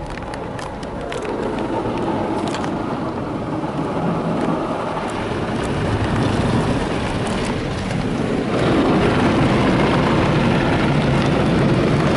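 Spinning brushes of a Belanger automatic car wash scrubbing across the car, heard from inside the cabin as a dense rushing and slapping noise. It grows louder about eight and a half seconds in.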